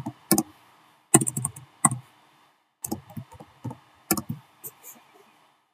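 Typing on a computer keyboard: irregular keystroke clicks in short runs, with brief pauses between them.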